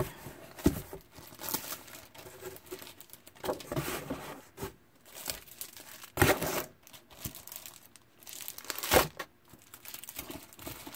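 Cellophane-wrapped scrapbook paper and sticker packs crinkling and rustling as they are stacked into a cardboard shipping box, with a few sharper bumps of packs being set down, the loudest about six and nine seconds in.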